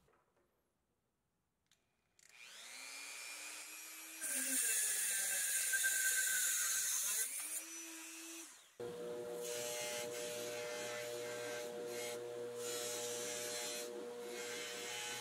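Dremel rotary tool spinning up with a rising whine, then its cut-off wheel grinding through a thin steel axle rod for several seconds, louder while cutting. Near the end of the cut the sound switches abruptly to a bench buffer running steadily, its cotton buffing wheel dressing the rod's cut end.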